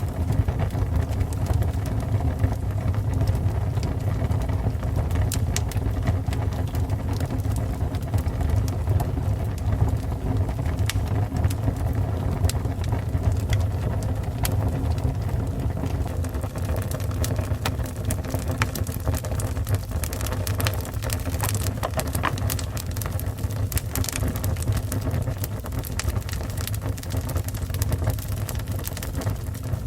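Fire burning steadily: a constant low roar with scattered crackles and pops.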